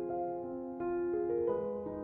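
Background music: a gentle piano melody, notes changing about every half second.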